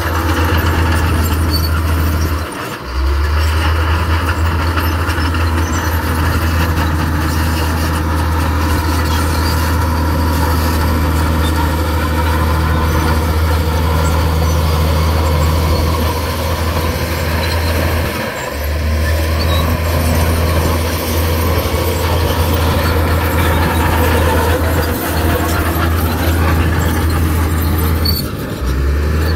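Diesel engine of heavy earthmoving machinery running steadily with a deep, constant drone. The sound drops briefly three times: about three seconds in, about two-thirds of the way through, and near the end.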